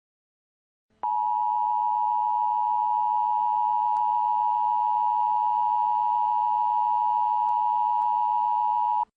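US Emergency Alert System attention tone: one steady, unbroken electronic tone that starts about a second in, holds for about eight seconds and cuts off sharply. It signals that an emergency message, here a tornado warning, is about to be read.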